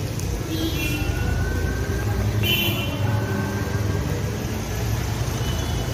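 Street traffic noise: vehicle engines running with a steady low rumble, with brief horn sounds about half a second in and again about two and a half seconds in.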